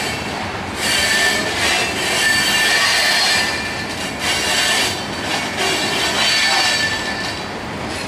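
Loaded coal cars of a freight train rolling past on curving track, the steel wheels squealing against the rails in high-pitched waves that swell and fade every second or so over a steady rumble.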